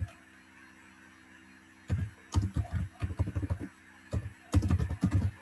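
Typing on a computer keyboard: two runs of quick keystrokes, one about two seconds in and a shorter one near the end.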